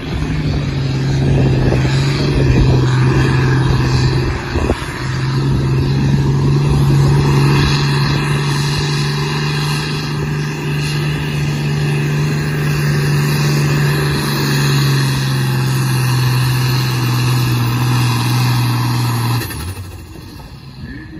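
Diesel engine of a New Holland TM120 tractor running flat out under heavy load as it drags a pulling sled, holding a nearly steady pitch with a brief dip about four seconds in. Near the end the engine throttles back suddenly as the pull ends.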